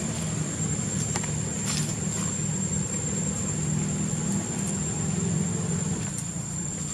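A steady low engine hum with a continuous high-pitched whine above it and a few faint clicks.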